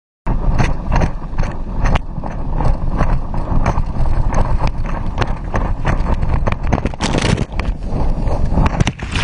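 Rushing wake water and wind buffeting a camera mounted at water level on a towed tube, with a rapid run of splashes and slaps of spray hitting it. The sound starts abruptly just after the start.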